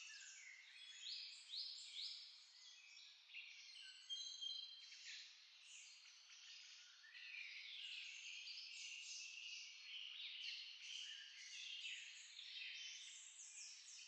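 Faint, dense chorus of many birds chirping and twittering at once: high-pitched calls with nothing low beneath them.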